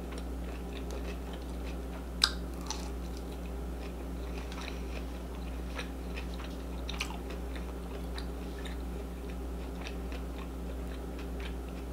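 A person chewing food, with scattered small mouth clicks and a sharper click about two seconds in, over a steady low hum.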